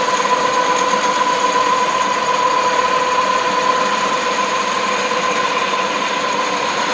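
Concrete grinding machine with an attached dust vacuum running steadily while grinding concrete: an even, loud rough hiss with a constant whine.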